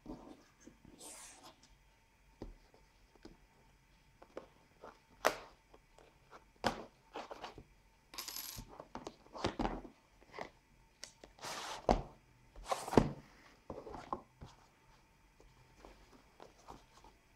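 Handling of a cardboard smartphone retail box: scattered light taps, scrapes and short rustling swishes as the box is turned over, its sleeve slid off and the inner box opened.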